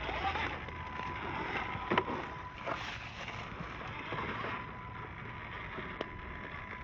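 Traxxas TRX4M RC crawler driving, its small electric motor and steel transmission gears whining and rising and falling in pitch with the throttle. There are sharp knocks about two seconds and six seconds in, the first the loudest.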